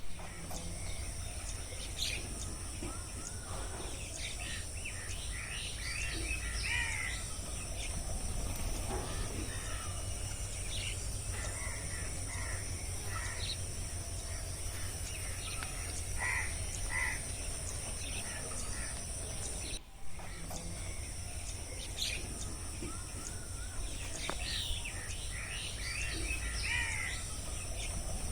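Rainforest ambience of mixed bird calls and chirps over a steady high-pitched drone and a low rumble. There is a brief dropout about two-thirds of the way through, after which the same calls repeat as a loop.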